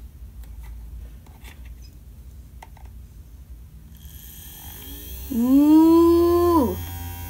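Small DC motors of a kit laser projector spinning its mirror mounts, starting up about four seconds in as a steady hum with a faint high whine, after a few light clicks from the switches and speed knobs being handled. Near the end a voice gives a loud, drawn-out "ooh", the loudest sound.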